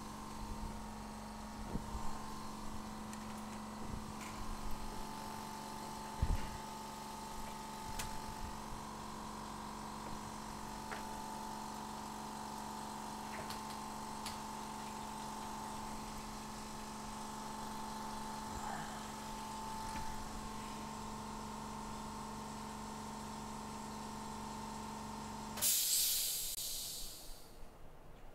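Steady electrical hum and whine of microsoldering bench equipment, with a few faint clicks of hand tools. Near the end the hum cuts off abruptly into a short hiss that fades away.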